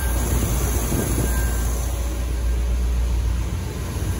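Small-block V8 of a 1976 Corvette Stingray idling steadily on its freshly rebuilt Quadrajet four-barrel carburetor, the engine still cold.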